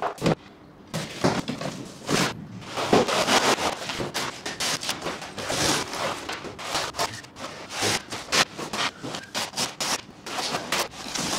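Corrugated cardboard boxes being pulled open and flattened: irregular scraping and rubbing of cardboard with sudden knocks.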